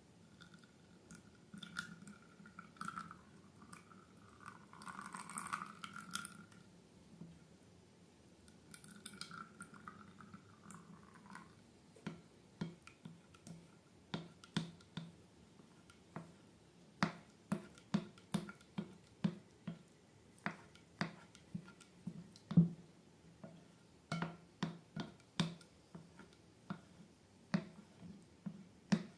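Slime being worked by hand: faint squeaky rubbing in two spells, then a long run of sharp, wet clicks and pops, about one or two a second, as it is squished and pressed.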